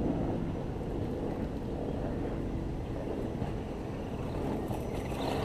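Wind buffeting the microphone over the whir of a 1/10-scale electric RC crawler's motor and gears. The whir grows louder near the end as the truck drives up close.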